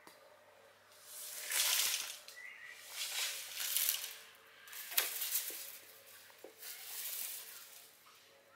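Intermittent rustling swishes, each lasting about a second, with a single sharp click about five seconds in and a brief high chirp early on.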